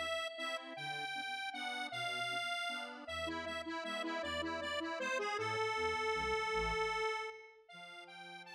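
Instrumental background music: a light tune of held notes over a bass line that changes about once a second, turning quieter and thinner near the end.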